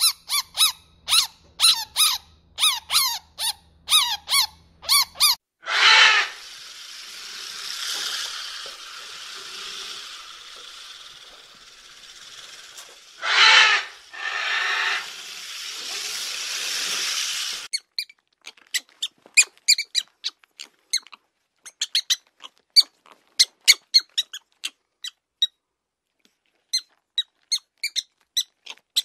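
Chinchilla squeaking in a rapid series of short calls. After about five seconds this gives way to a porcupine's long hissing, rasping noise with two loud bursts. The last ten seconds or so hold a run of short, high chirps and clicks from a greater mole rat.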